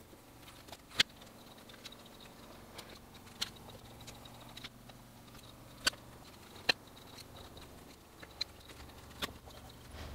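Prismacolor colored pencil scratching faintly on sketchbook paper, broken by about six sharp clicks as pencils are tapped and handled. The loudest clicks come about a second in and again past the middle.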